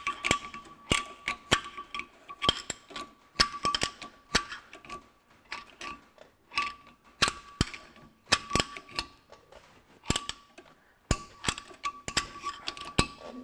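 Irregular metal clicks, about two a second, as a pry bar levers the Ferguson TE20's flywheel ring gear round, turning the engine over in fourth gear to check that the repaired clutch drives the back end. A faint steady high tone runs underneath.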